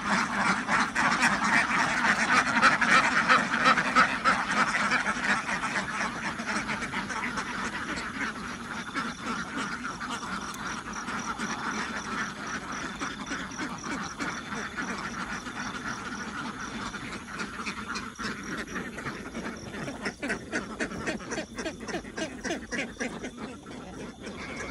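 A large flock of laying ducks quacking continuously in a dense chorus, loudest in the first few seconds and then thinner.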